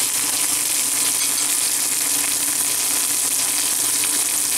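Breaded Alaskan pollock fillets sizzling steadily in hot oil in a nonstick frying pan.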